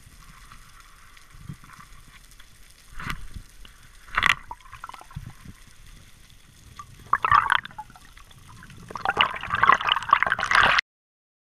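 Underwater bubbling and water rushing heard through a diver's camera housing, in separate short bursts and then a longer, louder stretch near the end that stops abruptly.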